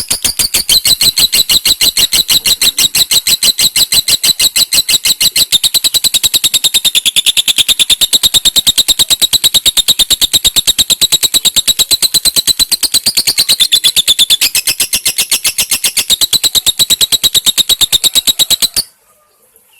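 Lovebird doing a long 'ngekek': a fast, unbroken run of sharp high-pitched chirps, many per second, that stops abruptly near the end.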